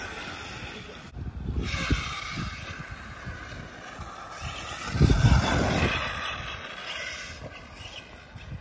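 Radio-controlled off-road buggy driving around a dirt track, its motor whining and shifting in pitch as it speeds up and slows. There is a louder rumble about five seconds in.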